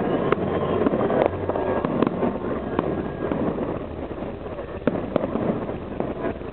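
Fireworks salute going off: a dense run of bangs and crackles from bursting shells, with sharper reports about a second in, at two seconds and around five seconds.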